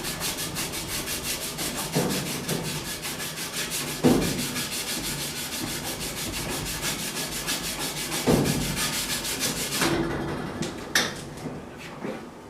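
Pipe being scrubbed by hand with an abrasive in quick, even back-and-forth rasping strokes to take corrosion off the metal. The scrubbing stops about ten seconds in, and a couple of light knocks follow.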